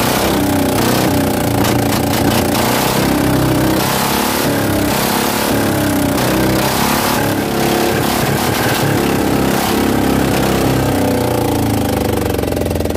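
Small fishing-boat engine running after being pull-started, its pitch wavering unevenly. The crew suspect moisture in the fuel tank is making it hard to start.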